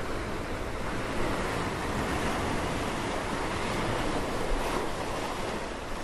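Sea surf: waves washing and breaking as a steady rushing noise that swells a little about a second in and eases slightly near the end.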